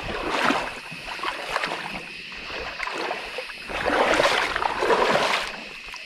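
Water splashing and sloshing in a shallow creek as a hooked smallmouth bass is fought in close, loudest about four to five and a half seconds in.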